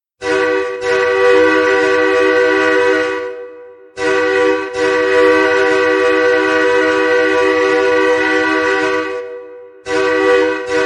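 Nathan K3LA three-chime air horn used as a hockey goal horn, sounding its steady chord in long blasts: one of about three seconds, one of about five, and a third starting near the end, signalling a goal scored.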